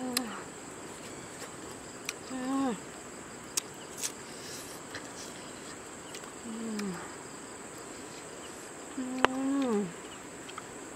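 Crickets chirring in a steady high drone, with four short calls that fall in pitch, each about half a second long, and a few sharp clicks.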